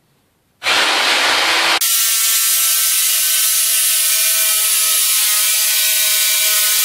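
Jigsaw with an ordinary, non-diamond blade cutting cement-based tile backer board, starting about half a second in. About a second later the sound is sped up fourfold and turns into a high, steady whine.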